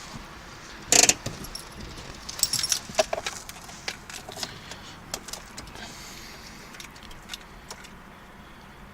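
Scattered light metallic clicks and jingling, the loudest a short clatter about a second in, with no engine running yet.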